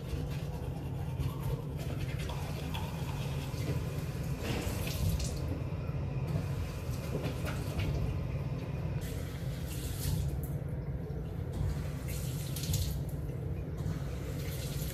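Water running from a tap into a sink, its hiss stopping and starting a few times over a steady low hum.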